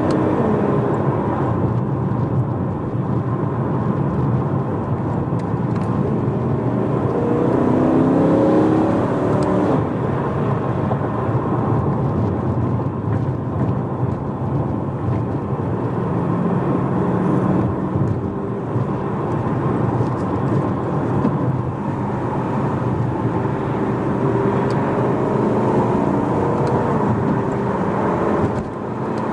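BMW E92 M3's 4.0-litre V8, with a primary-decat X-pipe and stock rear silencer, heard from inside the cabin while driving. The revs climb and it gets louder about seven to nine seconds in, it then runs steadily under road and tyre noise, and the revs climb again near the end.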